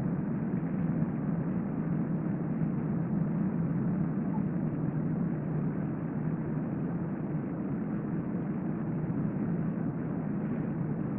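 Steady low rumbling room noise with no clear breaths or snores standing out.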